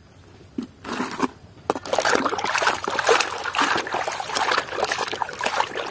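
Muddy water splashing and sloshing in a plastic tub as a hand scrubs a plastic toy under the surface; faint at first, then dense, irregular splashing from about two seconds in.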